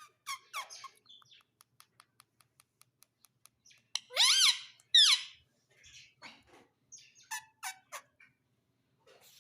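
Pet parrot calling: a few short chirps, a run of faint ticks about four a second, then two loud squawking calls that rise and fall in pitch about four and five seconds in, followed by several shorter chirps.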